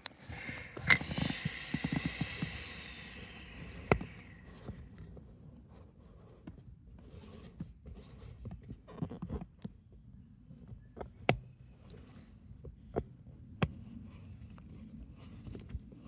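Plastic relief-valve parts being handled and screwed back together: a hiss that fades away over the first few seconds, then scattered clicks and small knocks of the parts as the threads are started.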